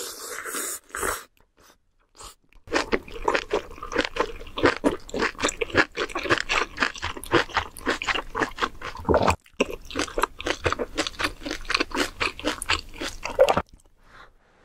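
A short slurp of noodles, then close-miked chewing of a big mouthful: a quick, steady run of wet, crunchy chews, several a second, that stops abruptly near the end.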